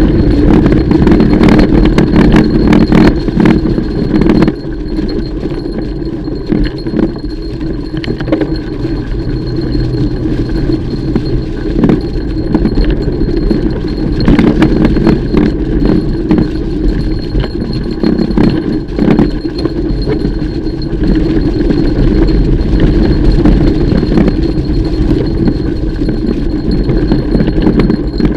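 Mountain bike ridden over a rough trail: a steady rumble of tyres on dirt with frequent rattling and clanking of the chain and bike parts over bumps.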